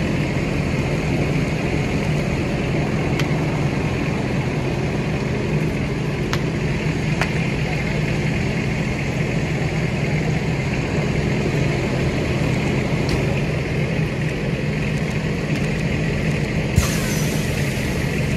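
Steady drone of a fire engine's motor running at the scene, with scattered sharp pops from the burning pickup truck. About a second and a half before the end a sudden loud hiss starts.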